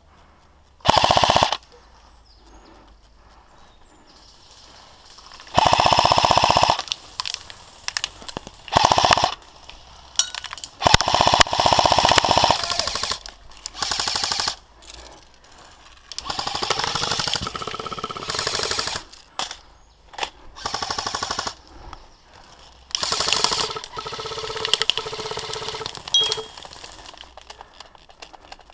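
Airsoft guns firing repeated full-auto bursts, each a fast stream of shots lasting from a fraction of a second to about a second and a half, some loud and close and others fainter.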